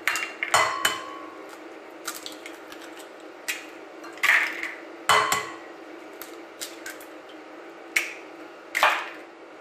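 Eggs being cracked on the rim of a glass mixing bowl: a series of sharp knocks and shell cracks, two of them leaving a brief glassy ring.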